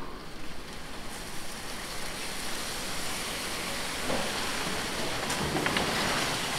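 Masking paper and plastic sheeting rustling and crinkling as they are pulled off a freshly painted car, over a steady rushing hiss, with a few sharper rustles around four and five seconds in.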